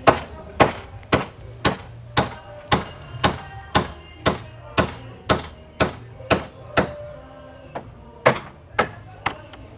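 Repeated hammer blows on wood, about two a second, each with a short ring. The blows pause briefly about seven seconds in, then resume. This is the knocking-together of a wooden ox cart's parts during assembly.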